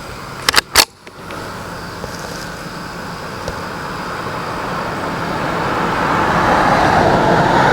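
Two or three sharp, loud clacks about half a second in, then the noise of a road vehicle growing steadily louder as it approaches.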